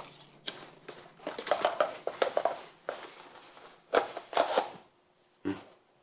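A small gift box being opened and a watch lifted out of it: a run of light clicks and rustles from handling the box and watch, with a couple of louder clicks about four seconds in.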